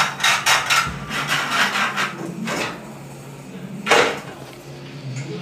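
Pen scratching quick back-and-forth strokes across a wooden countertop while marking out a cutout, about four strokes a second, followed by a single louder knock about four seconds in.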